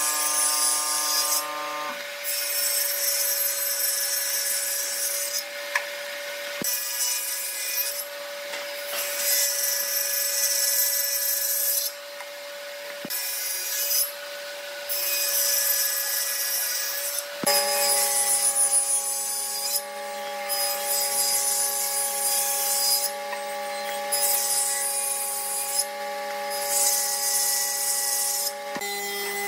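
Table saw cutting a tenon into the end of a wooden block held upright against the fence, in a series of passes of a few seconds each with short breaks between. A steady motor hum runs underneath and shifts in tone about two-thirds of the way through.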